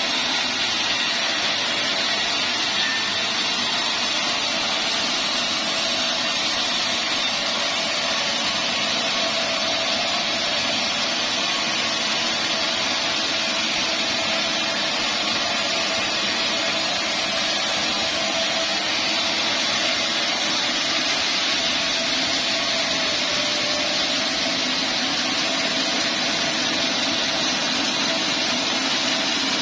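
Band sawmill running steadily, sawing dried teak into boards: an even, unbroken machine noise with a constant pitch.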